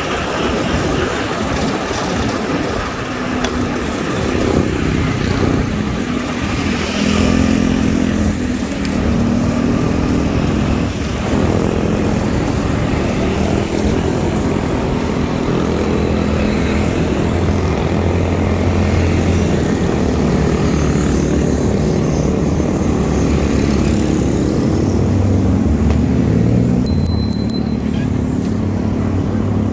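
Street traffic heard from a moving bicycle: motorcycle engines running nearby, their pitch shifting as they speed up and ease off, over a constant low rumble of wind and road noise.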